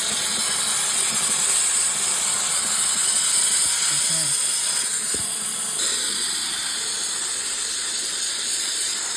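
Steam cleaner jetting steam into a refrigeration condenser coil with a steady hiss, blasting built-up dirt out of the coil.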